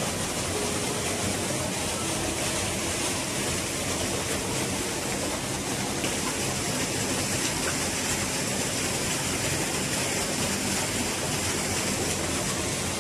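Steady rushing of flowing water, an even hiss with no breaks.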